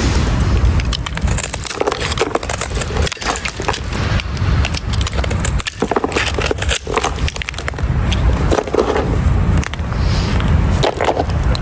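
Dry soap being scraped, with a dense run of crisp crackling as the brittle shavings break and crumble, over a low rumble.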